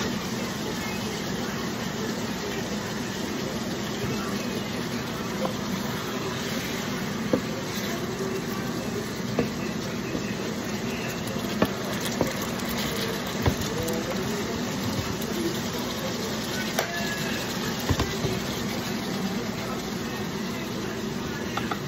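Chicken adobo sizzling in a frying pan while a wooden spatula stirs it, with a few sharp knocks of the spatula against the pan.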